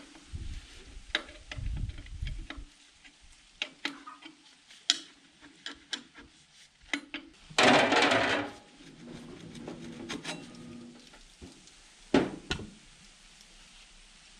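Hand work on the 1961 Zetor 25's diesel engine: scattered metallic clinks and knocks of tools and fittings, with a few dull thuds in the first couple of seconds and one louder, noisy burst lasting about a second around eight seconds in.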